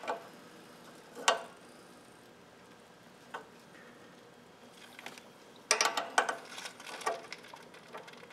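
Brake fluid and air being drawn by a hand vacuum pump through a just-loosened brake bleed screw into its clear tube: a single click about a second in, then from past halfway a quick run of sharp crackling ticks.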